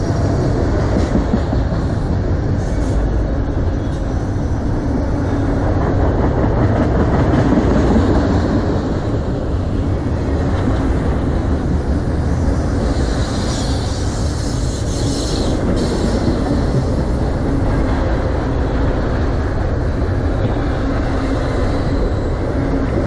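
Freight train of autorack cars rolling past close by: the steady, loud noise of steel wheels running on the rails.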